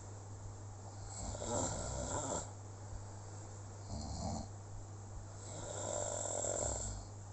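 Snoring: three slow snores, each a second or more long except a short middle one, with a steady low hum underneath.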